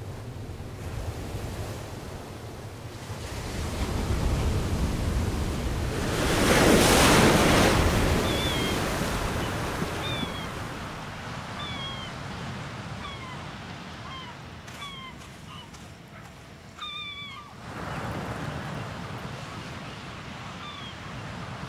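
Ocean surf: a wave swells and breaks about seven seconds in, then the wash slowly dies away. From about eight seconds on, short high squeaky calls repeat every second or so over the surf.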